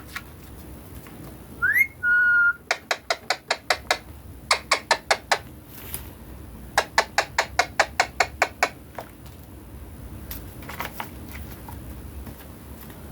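Ringneck parrot giving a rising whistle and a short held whistle about two seconds in, then three quick runs of sharp repeated calls, about six a second.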